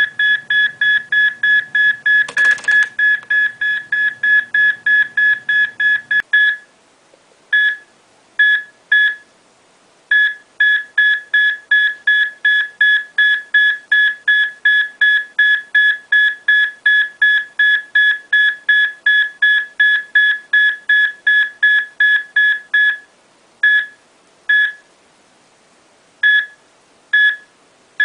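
Heart-monitor beeping at a racing rate of about three beeps a second, the rhythm of tachycardia. The beeps break up into a few irregular ones at about 6 seconds, race again from about 10 seconds to 23 seconds, then fall to scattered single beeps near the end. A short noisy burst comes about two and a half seconds in.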